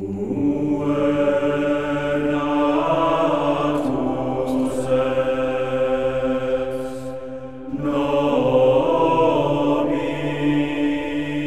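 Intro theme music of sustained, droning held chords, chant-like in character, with a few brief swishing sweeps laid over it. It dips near the middle and comes back in.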